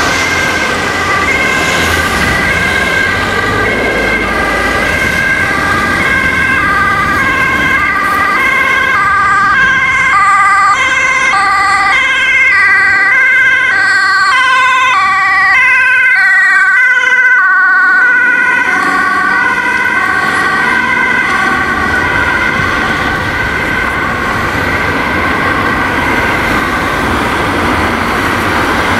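A Dutch ambulance's two-tone siren alternates high and low, growing louder as the ambulance approaches. It drops in pitch as the ambulance passes a little past halfway through, then fades as it drives away.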